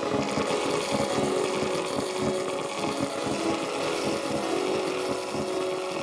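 Glitch electronic music: a dense, noisy layer of rapid clicks over held tones.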